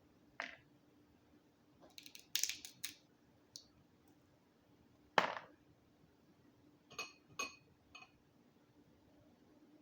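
Scattered short, sharp clicks and cracks from eating a boiled Dungeness crab: shell being broken and picked apart, with clinks against the plate. The loudest crack comes about five seconds in, with a few quicker ones about two to three seconds in and two more near seven seconds.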